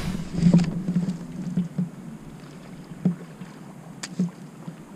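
Kayak on the water: water lapping against the hull, with a few sharp knocks scattered through.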